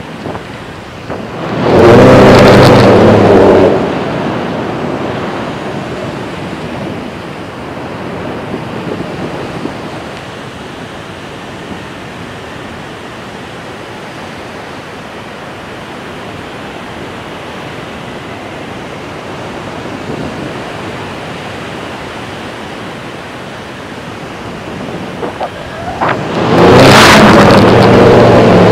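Steady wind rush on the microphone of a camera carried aloft by a kite. It is broken by two loud stretches of low, buzzing wind buffeting, about two seconds in and again near the end.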